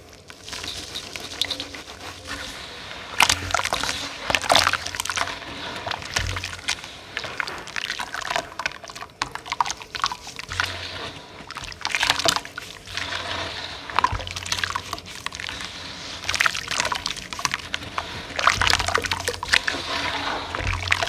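Hands sloshing, squeezing and swirling crumbled, gritty dust paste in a basin of water: irregular wet swishes and splashes with gritty squelches as the soaked material breaks apart.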